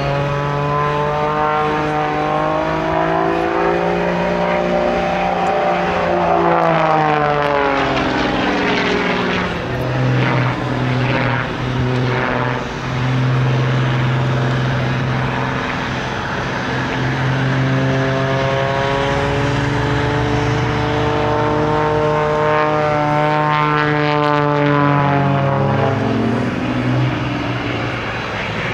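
Propeller engine of an aerobatic airplane droning. Its pitch rises and falls twice, with a steadier stretch in between.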